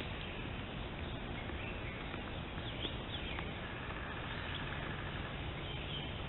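Steady hiss from a trail camera's microphone, with a few faint high bird chirps and short whistled notes around the middle.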